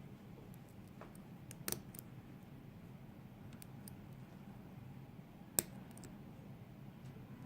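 Lock picks working inside a Mul-T-Lock MT5+ cylinder, setting the sidebar sliders: small metallic clicks, a pair about two seconds in and a louder single click past five seconds, over a low steady hum.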